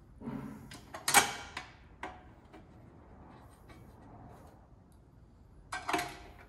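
Metal parts handled inside an aluminium oil pan: a few clanks, some with a brief metallic ring, the loudest a little over a second in and another near the end.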